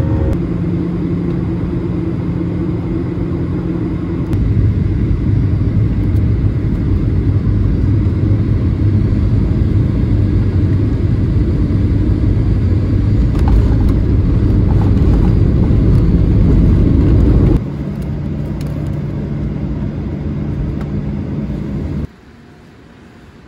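Steady low rumble from inside a moving vehicle, with a faint steady hum over it. It grows louder about four seconds in, drops abruptly to a different hum later on, and falls much quieter shortly before the end.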